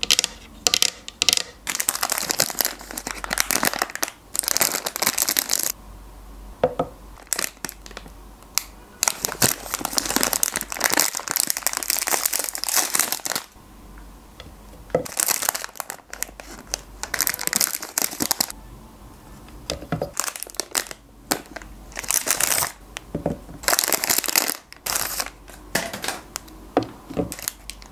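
Plastic ice-cream wrappers being torn open and crinkled, in bursts of rustling a few seconds long with short pauses between, and a few sharp taps at the start.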